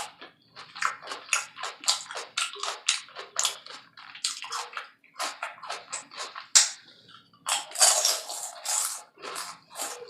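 Close-miked wet chewing and mouth sounds of someone eating a taco salad: short smacking bursts a few times a second, with a sharp click about six and a half seconds in and a longer, louder burst near the end.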